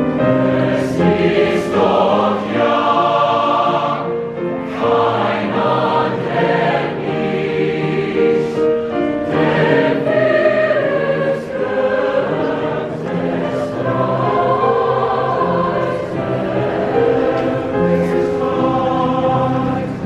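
Large mixed choir of young men and women singing together, holding sustained chords that change every second or two, with sharp hissing consonants cutting through now and then.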